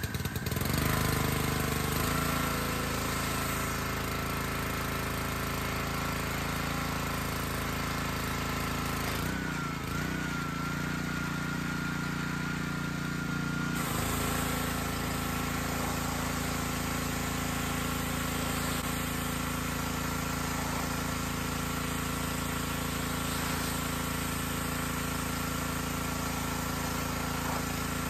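Honda gas pressure washer's single-cylinder four-stroke engine and pump, just started and running steadily under load with a high steady whine. The note shifts for about four seconds near the middle. It keeps running without stumbling now that the carburetor has been cleaned, and the owner says it sounds great with full power.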